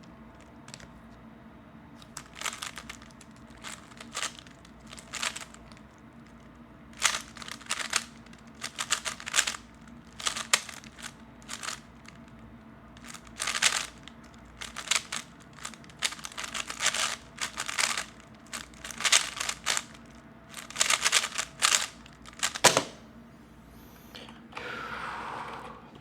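A 3x3 Rubik's Cube being turned fast in a speedsolve: quick runs of plastic clicking as the layers are turned, with short pauses between the runs. A sharp knock comes near the end, then a short soft rush of noise.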